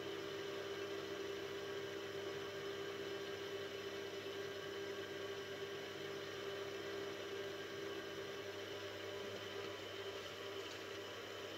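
Mini milling machine's spindle motor running at a steady speed with a constant hum and whine, while a fine 2.6 mm drill bit is fed slowly through a small steel slide bar.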